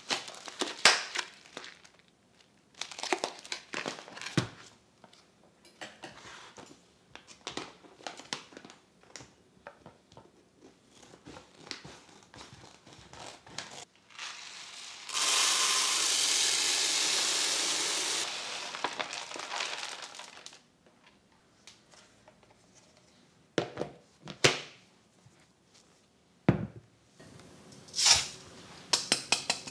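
Plastic bag of rice crinkling and rustling as it is handled, with rice grains pouring steadily into a plastic storage container for about three seconds around the middle.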